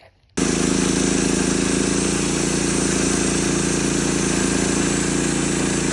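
Norwood LM30 bandsaw mill running steadily as it saws a white oak log, starting suddenly about half a second in: the engine's steady drone with a wide hiss of the band blade cutting.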